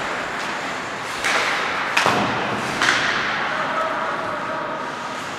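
Ice hockey play in a rink: three sharp knocks of puck and sticks, about a second in, at two seconds and just before three seconds, over a steady hiss.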